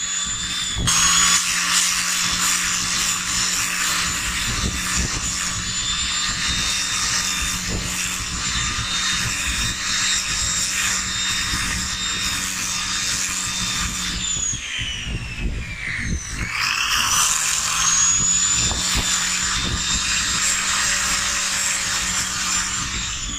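Handheld power sander spinning a sanding disc against a wooden rifle stock, its motor giving a steady high whine mixed with the rasp of abrasive on wood. The pitch sags for about two seconds some fourteen seconds in as the motor slows, then climbs back to full speed.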